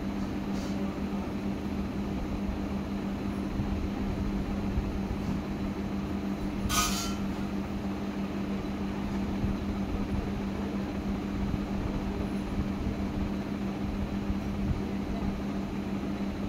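Juki industrial sewing machine running at a steady speed, stitching a long side seam, with an even hum. A short hiss about seven seconds in.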